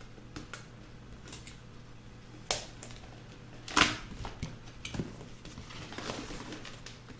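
Cardboard box being handled and opened: scattered taps, knocks and scrapes of cardboard, with two louder knocks, the sharpest about halfway through.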